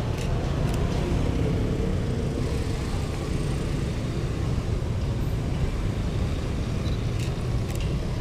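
Steady road traffic noise, mostly motorbikes and cars running past as a continuous low rumble, with a few faint short clicks.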